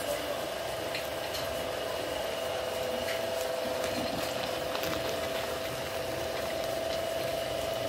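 Electric stone mill grinding almonds into amlou paste: a steady motor hum with a constant whine and a few scattered clicks.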